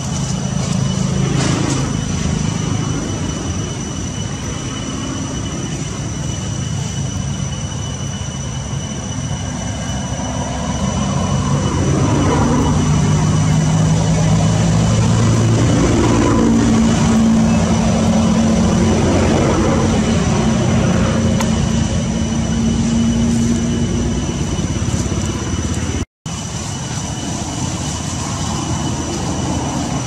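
Low engine rumble of motor traffic, swelling in the middle and easing off again, with a steady high-pitched whine over it.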